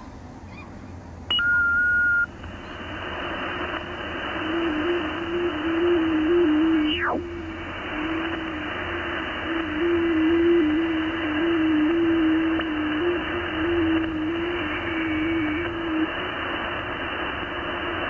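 Shortwave receiver audio on the 30 m band: a hiss of band noise with a warbling FT8 signal low in pitch, stepping between close tones for about twelve seconds, the T30L station's transmission being received. A short steady beep comes a little over a second in, and a whistle sweeps down in pitch about seven seconds in.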